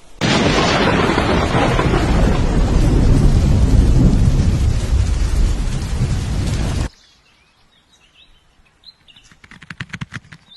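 Heavy rain with low rumbling, like a thunderstorm, loud and steady, cutting off abruptly about seven seconds in. Faint bird chirps and a quick run of sharp clicks follow.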